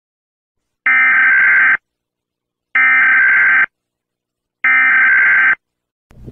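Emergency Alert System SAME header tones: three identical loud, screeching digital data bursts, each just under a second long and about a second apart, starting and stopping abruptly. They mark the start of an EAS emergency alert.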